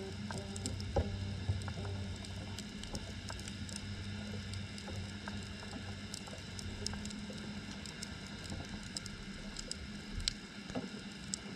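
Underwater ambience picked up by a GoPro in its waterproof housing on the seabed: scattered faint clicks and crackles over a steady low hum.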